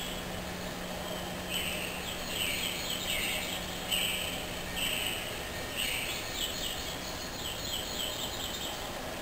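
Birds chirping on a "Video Catnip" videotape, played through a TV speaker: short repeated chirps in quick clusters over a steady hiss, with a low hum that stops about halfway through.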